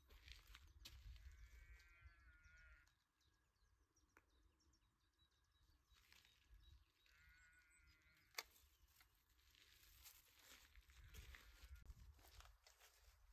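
Faint outdoor near silence: a low wind rumble on the microphone, with two short quavering animal calls, one a couple of seconds in and one about seven seconds in, and a single sharp click about eight seconds in.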